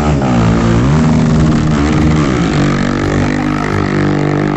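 Motorcycle engine running loud, its pitch dipping and rising a couple of times in the first two and a half seconds as the throttle is worked, then holding steady.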